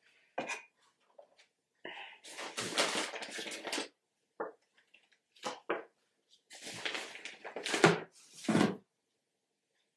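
Hands rummaging through the packaging in a subscription box, rustling and knocking in a series of short bursts as items are moved and lifted out.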